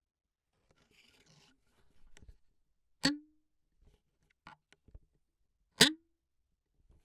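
Hand-held foley props being struck, such as sticks: faint handling rustle and a few light taps, then two sharp hits about three seconds apart, each with a brief low ring.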